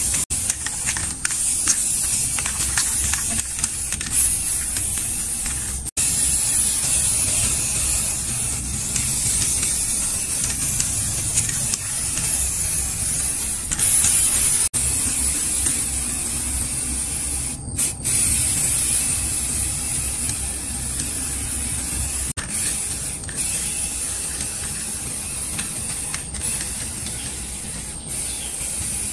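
Aerosol spray-paint can hissing as paint is sprayed, in long bursts with a few short breaks.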